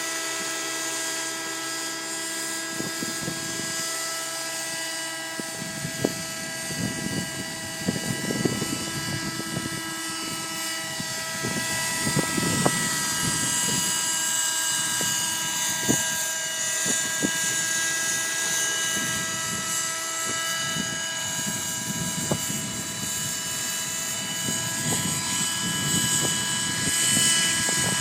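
Thunder Tiger Raptor 30 V2 nitro RC helicopter running, its two-stroke glow engine and rotors giving a steady high whine. Wind gusts buffet the microphone with an irregular low rumble from a few seconds in.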